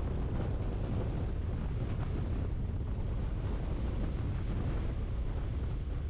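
Steady rumble of road and wind noise from a vehicle driving along a highway, heaviest in the low end and unchanging.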